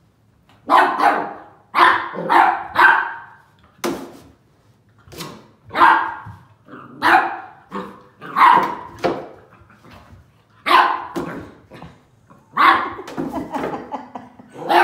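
A puppy barking repeatedly in short barks, often two or three close together, with pauses of one to two seconds between runs.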